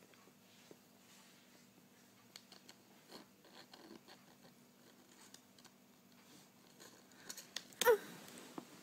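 Faint scratching and small clicks of a MacBook's MagSafe charger plug being handled, then a sharp louder click near the end as the magnetic connector snaps into its port.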